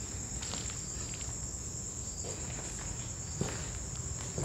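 Insect chorus: a steady, unbroken high-pitched trill, with a few faint taps.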